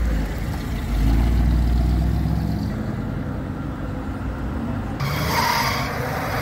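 Engine of a 1959 Ford convertible running as the car pulls away and drives off, a deep steady rumble that grows louder about a second in. About five seconds in the sound cuts abruptly to a brighter, hissier outdoor background.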